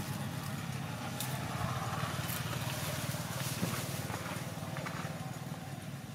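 A motor running steadily with a low, even drone, with a few short clicks on top.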